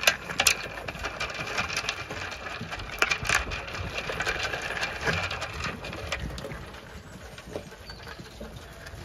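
Zwartbles sheep crunching feed pellets at a metal trough: a dense, irregular run of crunches and clicks that grows fainter in the last few seconds.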